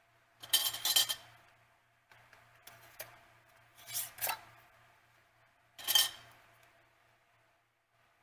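Metal screw bands clinking and scraping against glass as they are set and twisted onto filled half-pint mason jars, in four separate bursts: the longest about a second in, the sharpest near the end.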